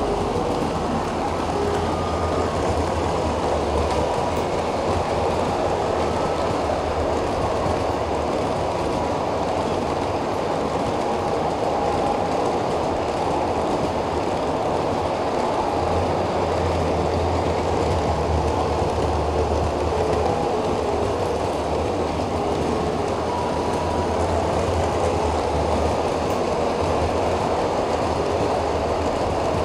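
G-scale model freight train running on its track, a steady rolling noise of wheels on the rails as the cars pass close by.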